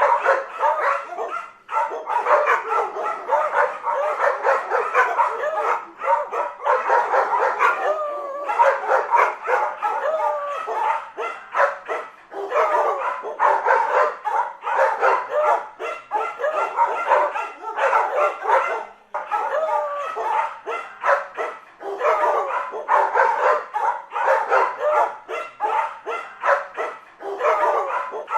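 A dog barking and yipping in quick, almost unbroken runs, with some calls bending up and down in pitch like whines.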